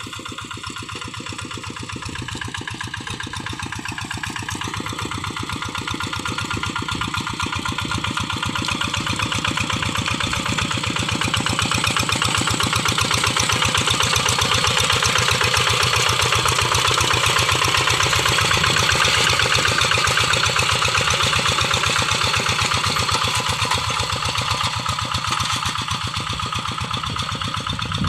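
Kubota single-cylinder diesel engine of a Quick G1000 two-wheel hand tractor running steadily at work with a fast, even chug. It grows louder over the first ten seconds or so, holds, then eases slightly near the end.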